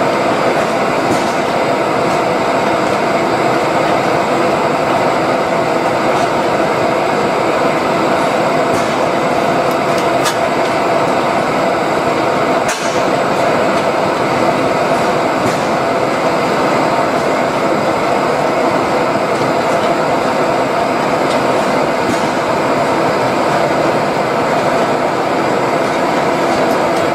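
1922 Fairbanks Morse Y-V hot-tube semi-diesel engine running, a loud, steady mechanical noise that holds even throughout.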